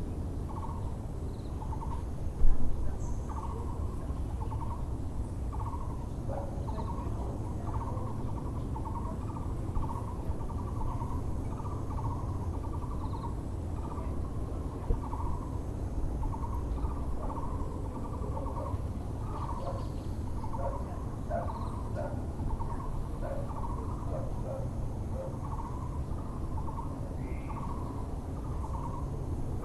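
A Muller's barbet (Taiwan barbet) calling a hollow note over and over, about once a second. Other birds give a few short calls in the background. A steady low rumble of background noise runs beneath, and a brief louder sound comes about two and a half seconds in.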